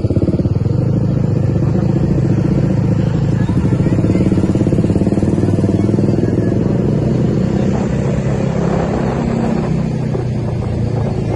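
A vehicle engine running steadily and loudly close by, with a fast even pulsing beat; it grows somewhat brighter in its upper range past the middle.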